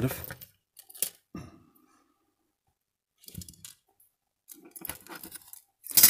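Faint clicks and rustles of thin wires and a small metal battery contact being handled on a workbench: two sharp ticks about a second in, then a scatter of small crinkly taps in the second half.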